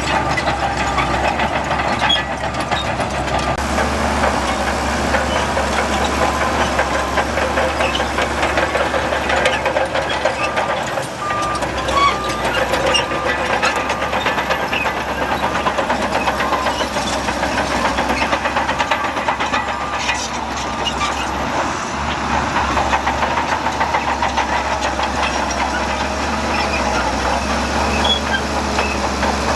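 Diesel engines of heavy earthmoving machines, a bulldozer and dump trucks, running steadily under work with a continuous clattering rattle.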